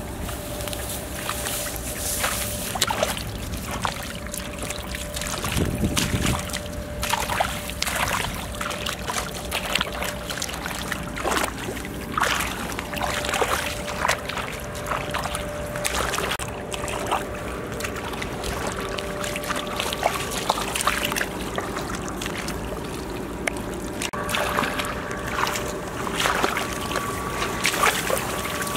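Bare feet wading through shallow muddy water, with irregular splashes and sloshes.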